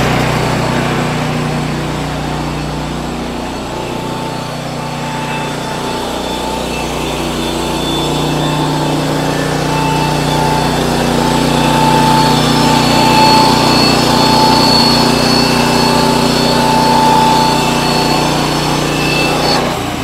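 Woodland Mills band sawmill running with its engine steady under load as the blade saws through a dried white oak board; the sound grows louder partway through and drops off sharply at the end.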